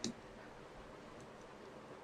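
A single short click right at the start, then faint steady room noise.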